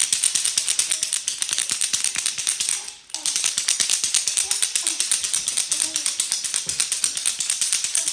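A fast, even rattling clatter of about ten clicks a second that cuts out briefly about three seconds in, with faint voices under it.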